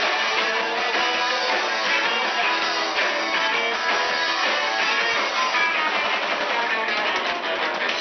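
Live band playing a rock song: electric guitar strummed over a drum kit beating out a steady rhythm.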